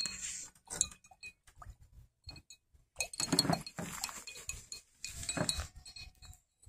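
Paintbrushes knocking and clinking against a glass jar of rinse water as they are dipped and swirled. The clinks come repeatedly, densest from about three seconds in.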